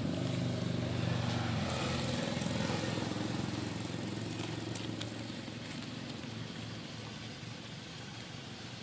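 A motor vehicle's engine running, loudest in the first couple of seconds and then gradually fading.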